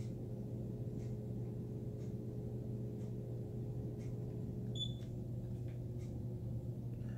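Low steady electrical hum, with a fainter higher tone in it that drops away about five seconds in.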